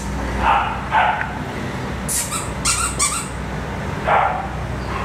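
A dog barking a few short times: twice about half a second and a second in, and once more near the end, over a steady low hum.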